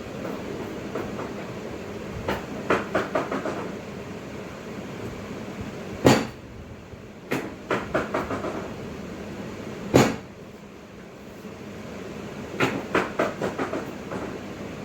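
Three runs of quick clicks or taps, five to seven in each, with two single louder thuds between them, about six and ten seconds in, over a steady low hum.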